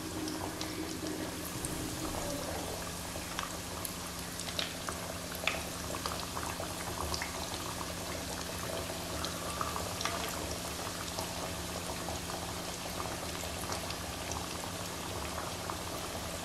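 Breadcrumb-coated chicken kababs frying in hot oil in a pan on medium flame: a steady bubbling sizzle with scattered small pops and crackles.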